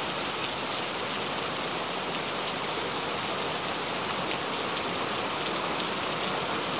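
Hail falling with rain on a wet concrete rooftop: a steady hiss of rain dense with small ticks of hailstones striking the ground.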